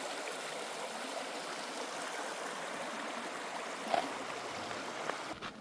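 A stream running: a steady rush of flowing water, with a small knock about four seconds in, cutting off just before the end.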